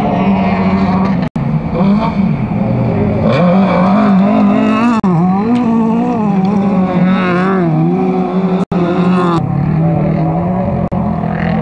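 Autocross race cars' engines revving hard on a dirt track, pitch swinging up and down as the drivers lift and accelerate through a corner, with more than one car heard. The sound cuts out for an instant twice, about a second in and near the end.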